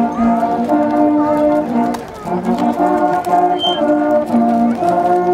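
Brass band playing a hymn tune in slow, held chords, with a brief break between phrases about two seconds in.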